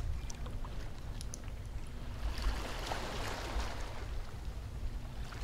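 Ocean surf: a steady rush of waves washing on the shore, swelling about two seconds in and easing off again.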